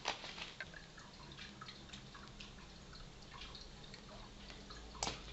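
Soft wet clicks and pops of a man puffing on a small Butz Choquin tobacco pipe, with a sharper click right at the start and another near the end.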